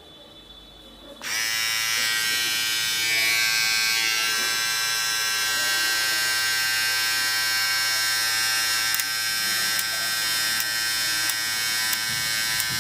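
Philips BT3101 electric beard trimmer switched on about a second in, then running with a steady, even buzz; a few faint clicks near the end.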